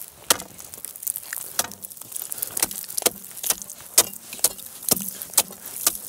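Steel ice spud bar repeatedly stabbed into lake ice, about two sharp clinking, chipping strikes a second, chopping down to test whether the ice is thick enough to be safe.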